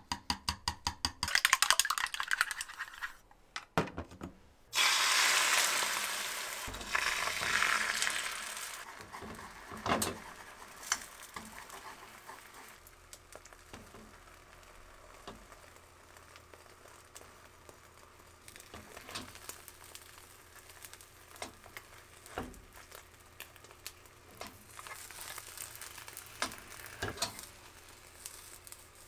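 Chopsticks rapidly beating eggs against a plastic measuring cup, a fast run of clicks. About five seconds in, the beaten egg hits a hot oiled tamagoyaki pan and sizzles loudly, then fades to a low sizzle, with scattered taps of chopsticks on the pan as the omelette is rolled.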